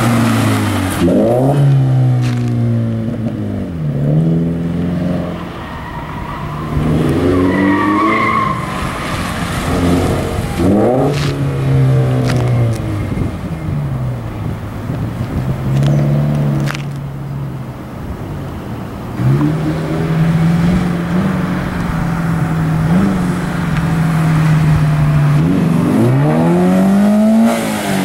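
2014 Scion FR-S's flat-four boxer engine through a Borla straight-pipe exhaust, revving up and dropping back again and again as the car is driven hard, with a short tire squeal about eight seconds in. Later it holds a steady drone for several seconds, then rises and falls as the car passes close by near the end.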